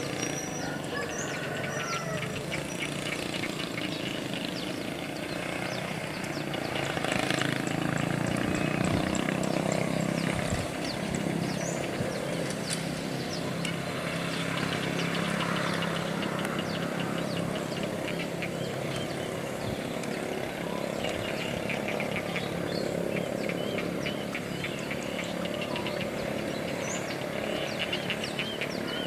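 Diesel locomotive of an approaching passenger train, heard from a distance as a steady low engine hum that swells for several seconds in the middle, over outdoor ambience with birds chirping.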